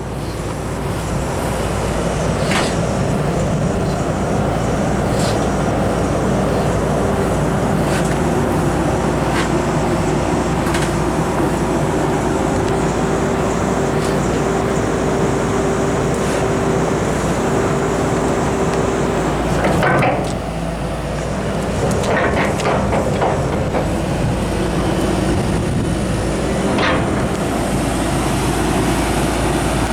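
Cat 320DL excavator's C6.4 diesel engine running steadily, with a sharp knock or clank every few seconds and a brief change in the engine note about twenty seconds in.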